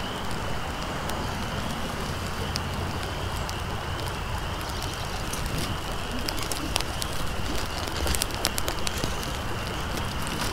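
Small tinder fire of birch bark, dry grass and twigs catching and crackling, with sharp pops that come more often over the second half, over a steady rushing background noise.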